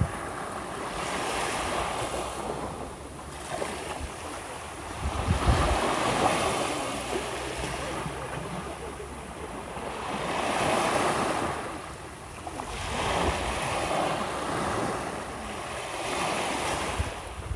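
Small waves breaking and washing up a shore, the surf swelling and fading every few seconds. Wind buffets the microphone now and then with low rumbles.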